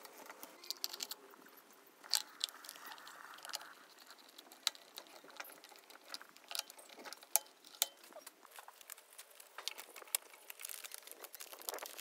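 Scattered small clicks and taps of a screwdriver and fingers working on a plastic compressor pressure switch, irregular and fairly quiet, with no motor running.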